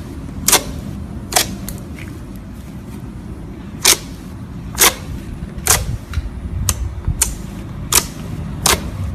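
Slime being worked by hand, giving sharp clicking air-bubble pops, about nine of them at uneven intervals, over a steady low rumble.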